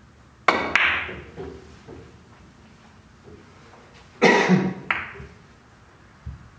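A three-cushion carom billiards shot. A sharp cue-tip click on the ball about half a second in, then a second ball click just after and a few faint knocks off the cushions. About four seconds in there are two more sharp ball-on-ball clicks, less than a second apart.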